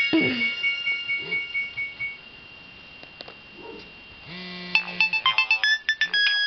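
Nokia 1208 mobile phone ringtones: one tune ends on a held electronic note about two seconds in, and after a short pause the next ringtone starts just past four seconds with quick, repeated electronic notes.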